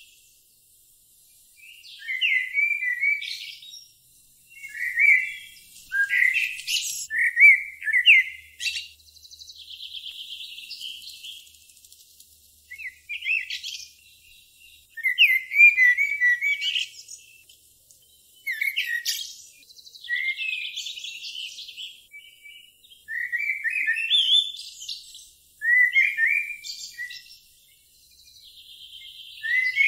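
Songbirds singing: short chirping phrases repeating every couple of seconds, some followed by a buzzy trill.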